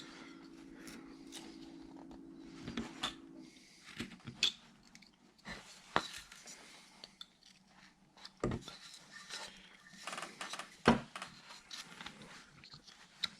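Hand carving tool cutting into wood: quiet scraping strokes and occasional sharp clicks of the blade biting and chips breaking off, a few louder ones spaced a couple of seconds apart. A low steady hum is heard for the first few seconds, then stops.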